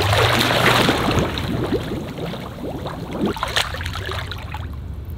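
Swimming-pool water splashing and sloshing as swimmers move through it close to the waterline. It is loudest in the first second, then settles into lighter splashes and lapping, over a low steady hum.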